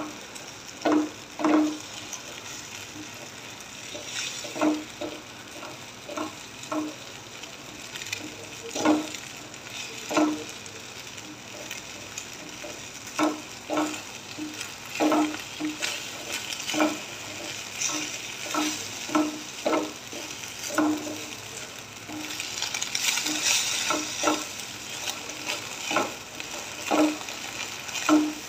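Scrambled eggs sizzling in a nonstick frying pan while a silicone spatula stirs them. The spatula knocks and scrapes against the pan in an irregular string of short strokes over a steady sizzle. The sizzle swells for a few seconds about three quarters of the way in.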